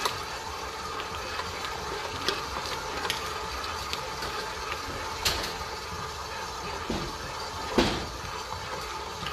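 KitchenAid Artisan stand mixer running steadily, its dough hook kneading brioche dough while butter is worked in, with a few soft thumps of the dough against the steel bowl; the loudest comes near the end.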